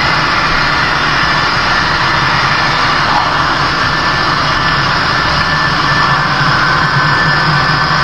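HO-scale model freight train running past on the layout: a steady, unbroken engine-like rumble.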